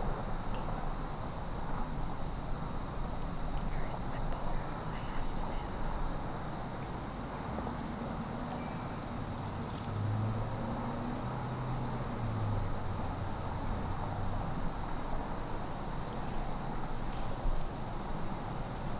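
Woodland ambience: a steady high-pitched insect-like trill over a rustling background, with a low hum from about eight seconds in to about fourteen seconds in.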